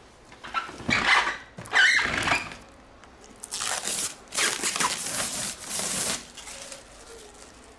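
Clear protective plastic film being peeled and pulled off an air fryer's glossy plastic body. A few short squeaks come in the first two seconds, then several seconds of crinkling and rustling.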